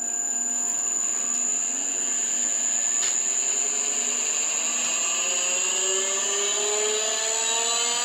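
Electric motor and hydraulic pump of a homemade forging press running on a variable-frequency drive, just switched on: a steady high whine over a motor hum that slowly rises in pitch from about halfway through.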